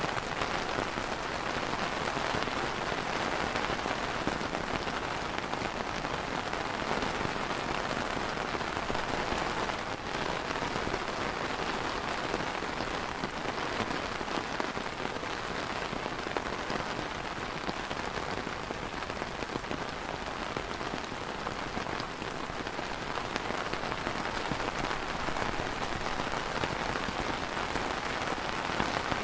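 Steady rain falling on a clear plastic umbrella canopy: a dense, even hiss of many drops with no let-up.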